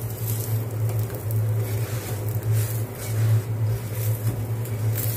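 Paratha cooking on a hot pan, with wooden tongs scraping and turning it now and then, over a steady low hum.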